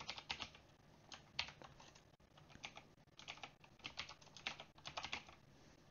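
Faint typing on a computer keyboard: irregular keystrokes in short runs with brief pauses between them.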